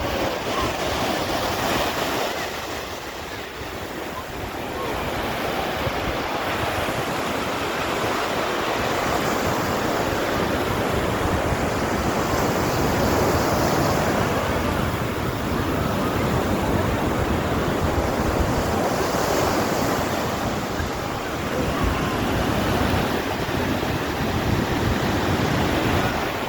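Sea surf washing onto the shore in a continuous rushing wash that swells and eases slowly every few seconds.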